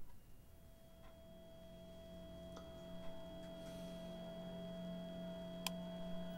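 Faint electronic tones fade in, a low hum under a steady whine and a thin high tone, slowly growing louder, with a few sharp clicks scattered through.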